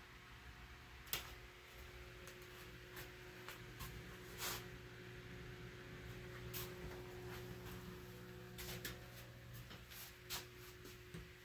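Steady low electrical hum in a small room, with scattered light clicks and taps, the loudest about a second in and about four and a half seconds in.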